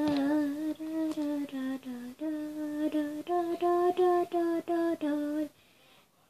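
A girl humming a tune in short separate notes, stopping shortly before the end.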